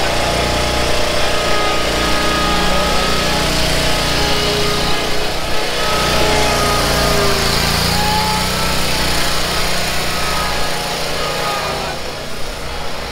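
Lawn mower engine running steadily, with a thin whine coming and going over it and dropping a little in level near the end.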